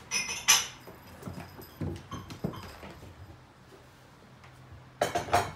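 Cats chasing each other, with paws thudding and scrambling. Sharp clattering bursts come just after the start and again near the end, with softer thuds in between.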